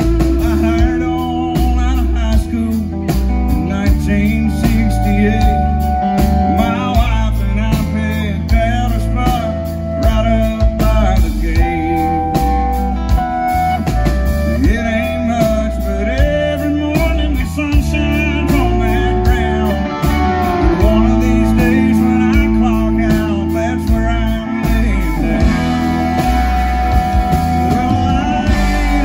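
Southern rock band playing live on electric guitars and bass guitar, the lead line holding and bending notes over a steady bass.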